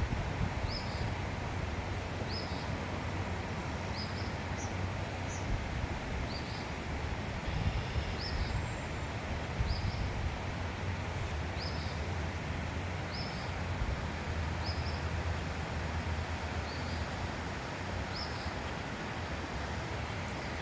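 A small bird repeating a short, high chirp about once every second or so, a dozen times, over a steady low rumble.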